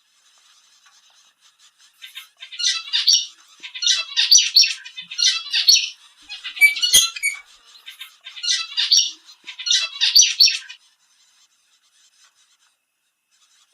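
Zebra finches calling: short, high-pitched calls in rapid clusters. There are six bursts, starting about two seconds in and coming roughly every second and a half, with one sharp click near the middle.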